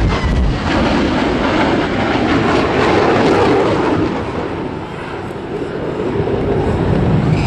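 Fighter jet's engines running loud in a low pass overhead, easing off a little past the middle and swelling again near the end. A deep boom from the ground pyrotechnics of the simulated bomb drop comes right at the start.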